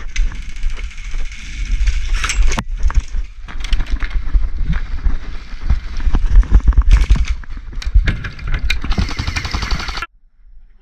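Airsoft guns firing in scattered shots and short strings, over the rumble and knocks of the wearer's helmet camera as he moves across the gravel field. It cuts off suddenly about ten seconds in.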